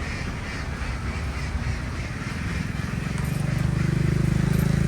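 A large flock of ducks quacking together in a dense chatter. In the second half a low, steady drone grows louder and becomes the loudest sound.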